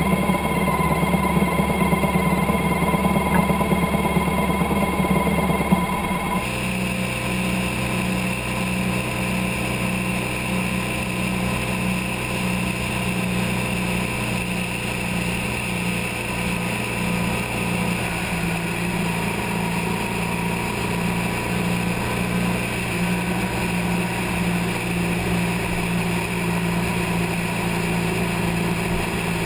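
Motorcycle engine running at a steady pitch, with a rushing noise over it. The sound changes abruptly about six seconds in, then holds steady again.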